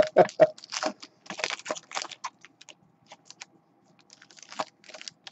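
Foil wrapper of a pack of football trading cards crinkling and crackling as it is torn open by hand: a dense run of crackles for the first two seconds or so, then sparser rustles as the wrapper is peeled off the cards.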